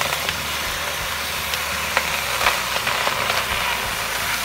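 Wet spinach leaves tipped from a plastic colander into a hot steel pan, sizzling and rustling steadily, with a few light knocks of the colander against the pan.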